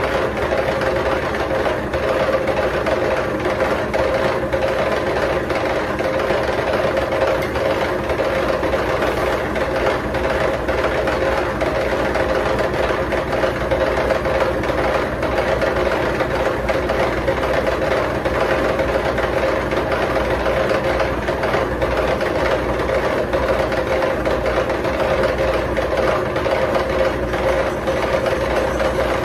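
Milling machine running steadily with a milling cutter in its head, face-milling an exhaust manifold flat. A constant hum with a rough, gritty texture, unchanged throughout.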